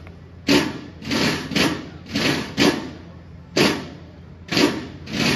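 A string of loud, sharp percussive hits, one or two a second and unevenly spaced, some coming in pairs.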